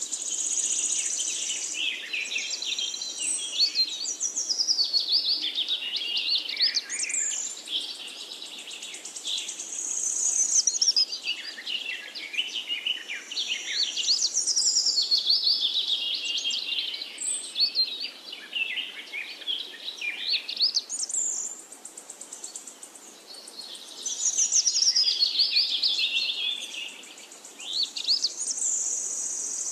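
A dense chorus of small birds chirping and twittering in rapid high calls, swelling and fading in waves.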